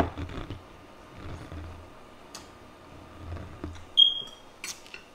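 Close-miked chewing and wet mouth sounds of a person eating. About four seconds in there is a short, sharp high squeak, the loudest sound here, followed by a few light clicks near the end.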